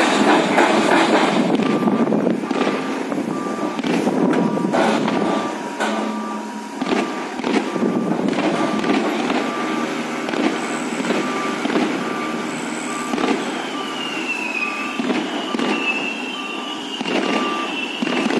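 Crawler-mounted rotary drilling rig running its engine and hydraulics while the auger turns into the ground, with a warning beeper sounding at a steady interval. A wavering high squeal comes in during the last few seconds.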